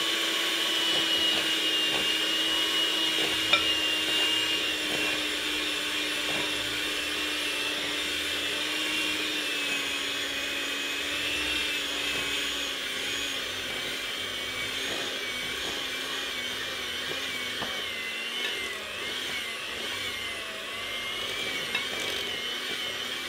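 Handheld electric mixer running steadily with its beaters in a glass bowl, mixing a thick, dense cookie dough as flour is added. The motor's whine sinks slowly in pitch and wavers in the second half as the stiffening dough loads it, with a few light ticks of the beaters and measuring cup against the glass.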